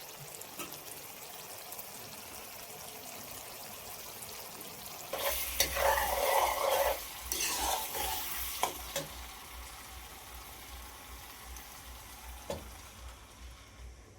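Food sizzling as it fries in hot oil in a pan, being stirred. About five seconds in the sizzling grows louder for some four seconds, with a few sharp clicks of a utensil, then settles back to a steady hiss.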